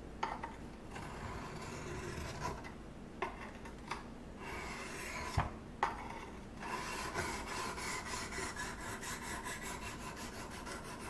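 Steel knife blade scraping along a wet coarse sharpening stone (Smith's Tri-Hone) in sharpening strokes, with a few sharp clicks as the blade is set down on the stone. A little over halfway through, the strokes turn quicker and more even, a steady back-and-forth rasp.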